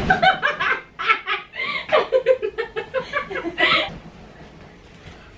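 People laughing in quick repeated bursts for about four seconds, then dying down.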